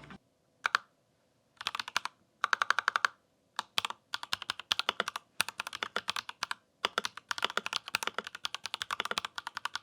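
Typing on a Royal Kludge RK61 Plus compact mechanical keyboard with tactile Pale Green switches and ABS keycaps. A single keystroke, then two short runs of clicks, then steady typing from about four seconds in.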